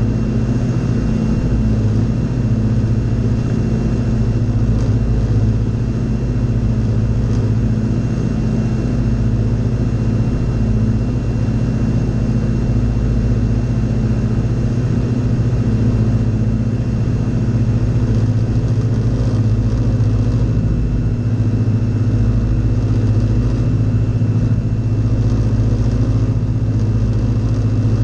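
The engine and propeller of a Fly Synthesis Storch S ultralight, running steadily in cruising flight and heard loud from inside the cockpit. The drone stays even throughout, with a thin steady high whine above it.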